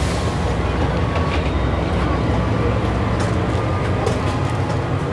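Steady low rumble of a passenger train standing at the platform, heard from inside the carriage vestibule, with a few faint light clicks over it.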